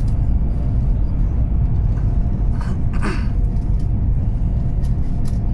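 Steady low rumble of a CRH high-speed train running along the line, heard from inside the passenger car, with a brief higher hiss about three seconds in.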